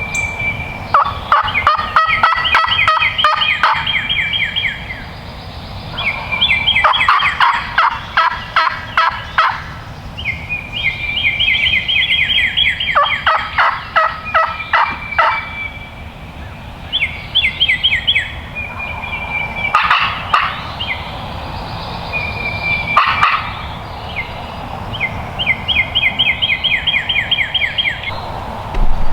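Wild turkey gobbling over and over, a loud rattling burst every few seconds.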